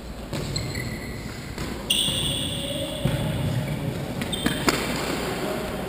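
Trainers squeaking on the sports-hall floor in several short high squeals, the loudest about two seconds in, with two sharp knocks of the football being struck a little past the middle, echoing in the hall.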